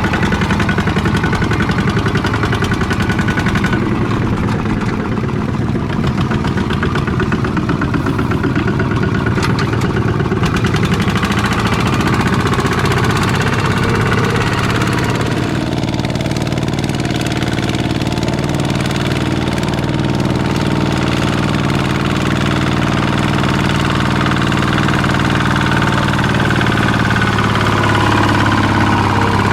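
Walking tractor's engine running continuously with a rapid knocking beat, hauling through deep mud. About halfway through, its note settles into a steadier, more even tone.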